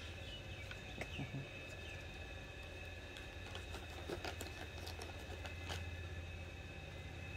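Quiet background: a steady low hum and a steady thin high whine, with a few short falling chirps in the first two seconds and scattered faint clicks.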